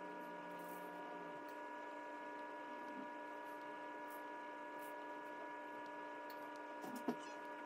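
Faint, steady electrical hum made of several fixed tones, with a couple of faint ticks near the end.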